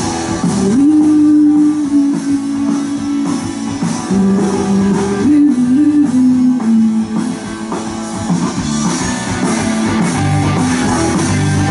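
Live indie-pop band playing: electric guitars strumming over bass and drums, with a long-held melody line that steps between notes through the first half.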